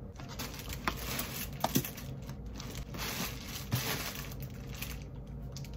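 Rustling, crinkling handling noise with a few light clicks scattered through it.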